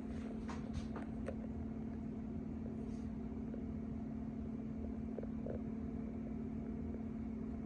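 Steady low hum of a running ceiling fan, with a few faint clicks in the first second and a half; the smoke alarm under test stays silent.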